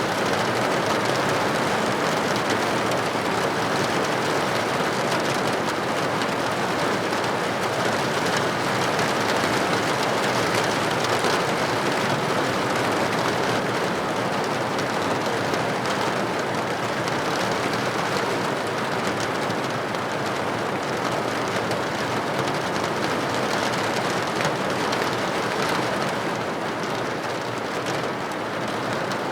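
Heavy rain falling steadily, a dense hiss with fine drop taps on leaves.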